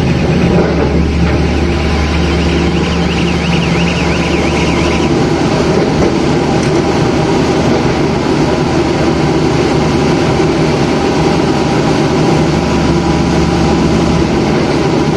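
Mini rotary drilling rig's engine and machinery running steadily, with a warbling whine over it for the first few seconds. About five seconds in the deep engine note drops away and a higher running note takes over.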